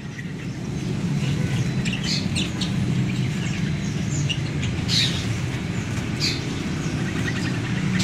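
Caged songbirds in a bird shop chirping in short, scattered calls over a low, steady background rumble.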